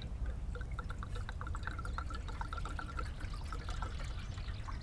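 Water pouring into a metal kettle, a trickling, gurgling pour that runs for about three seconds over a low steady rumble.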